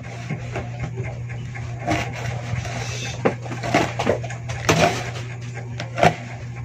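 Kitchen knife slicing long green chili on a cutting board: a few irregular knocks as the blade strikes the board, over a steady low hum.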